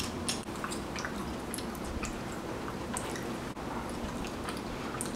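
Chewing freshly started bubblegum balls: scattered faint wet clicks and smacks of the mouth over quiet room tone.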